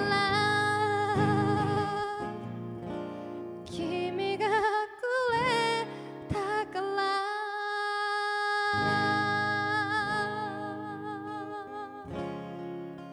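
A woman sings with her own acoustic guitar accompaniment, capo on the first fret. The guitar drops out briefly while she holds one long note about seven seconds in, then comes back in.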